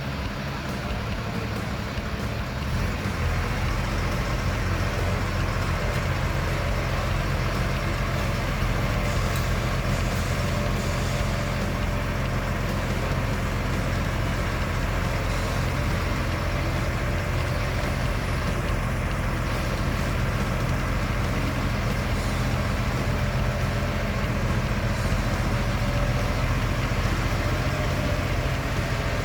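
Heavy machine's engine running steadily with a low, even drone, a little louder from about three seconds in.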